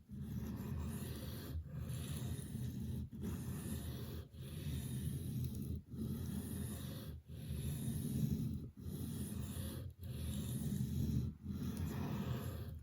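Knife blade being ground on a 600-grit Atoma diamond plate: a steady scraping in long, even sharpening strokes, about nine of them, each about a second and a half with a brief break between.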